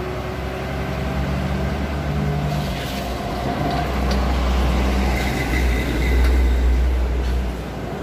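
Heavy diesel truck engines: a loaded cargo truck pulling away down the road while another lorry passes close by. A steady low rumble swells in the middle and eases near the end.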